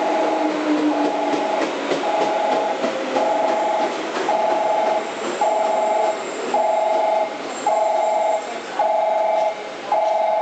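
A two-tone electronic warning beep repeating about once a second, over the low running noise of the Ohmi Railway 800 series electric train creeping into the depot yard.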